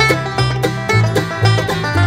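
Background music: quick, evenly paced bluegrass-style tune of plucked strings, led by banjo over a stepping bass line.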